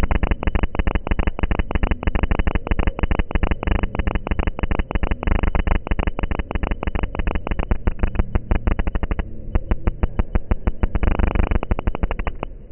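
Running noise of a moving passenger train, heard from beside a carriage window as a loud, rapid, choppy pulsing. The higher part of the sound drops away briefly about nine seconds in and comes back near eleven seconds.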